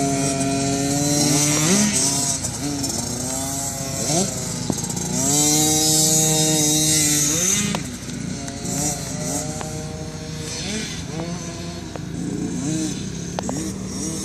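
Pit bike engines revving up and down, their pitch climbing and dropping again and again as the riders work the throttle and gears. The loudest bike is around five to eight seconds in; after that, fainter engines rev in overlapping rises.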